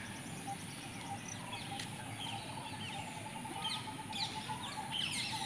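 Several birds chirping in short, separate calls, over a steady high-pitched whine and outdoor background noise.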